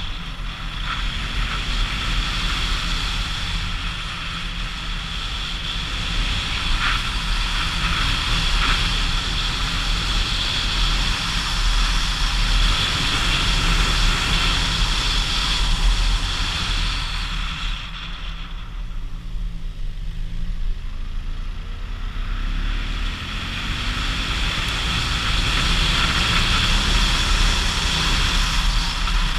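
Motorcycle riding uphill, its engine running steadily under way with wind rushing over the camera microphone. Past the middle the wind rush falls away for several seconds as the engine revs climb slowly, then the rush builds again.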